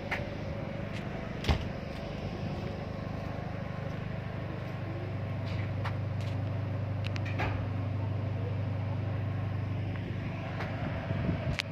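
Steady low hum of a ferry's engines and onboard machinery, heard out on deck. A sharp knock comes about one and a half seconds in, with a few lighter clicks and knocks later on.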